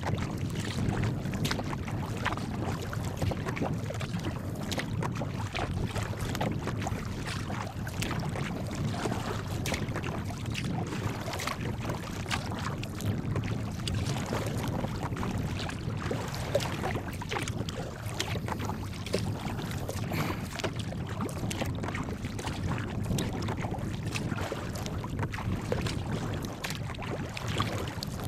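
Choppy water splashing and slapping against a sea kayak's hull as it moves through small waves, with wind rumbling on the microphone.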